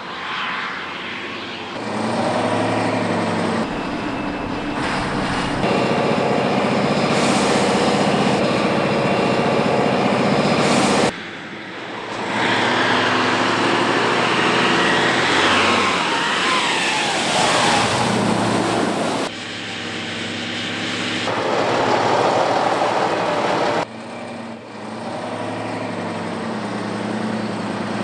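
Tatrapan 6x6 armoured vehicle's engine running under load and revving as it drives off-road, in several spliced takes. The pitch rises and falls, and the sound changes abruptly at each cut.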